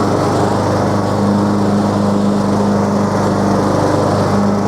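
Husqvarna TS142 riding lawn mower's engine running steadily under load while mowing with the blades engaged.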